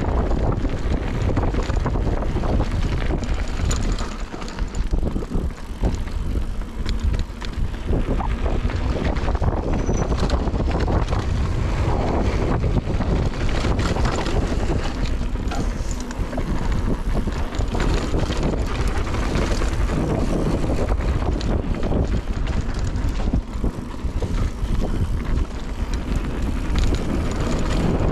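Wind buffeting a helmet or chest camera's microphone on a fast mountain-bike descent, with a Giant Reign mountain bike's tyres on a dirt trail and the bike rattling and clicking over bumps.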